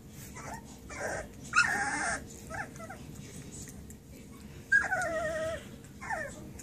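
Very young puppies whining and squealing: two longer, wavering cries about one and a half seconds in and about five seconds in, with short yelps in between.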